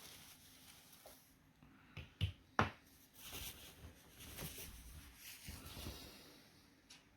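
Small handling sounds: three sharp clicks about two seconds in, then a few seconds of scraping and rustling.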